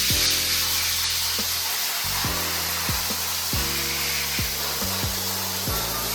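Background music with deep bass hits over a steady, unbroken hiss of sandblasting abrasive.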